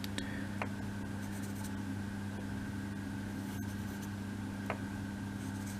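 Steady low electrical hum with two faint light ticks, about half a second in and near the end, from small laser-cut wooden kit parts being handled while glue is applied.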